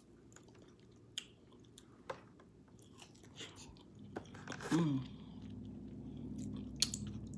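Close-up eating sounds of a smothered pork chop being bitten and chewed, with small wet clicks throughout. About halfway through comes a short, pitched 'mm' sound of the voice, and a low steady hum runs under the second half.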